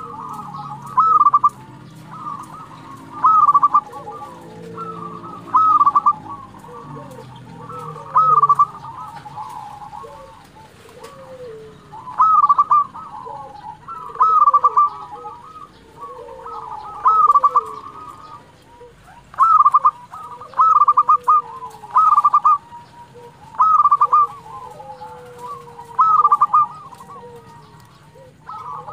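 A local-strain zebra dove (perkutut) singing its rolling cooing song, one short phrase every two seconds or so.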